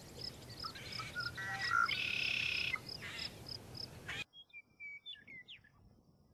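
Red-winged blackbird singing: short notes, then a buzzy trill that is loudest about two seconds in, over a high ticking that repeats about three times a second. The sound cuts off abruptly about four seconds in, leaving a few faint chirps.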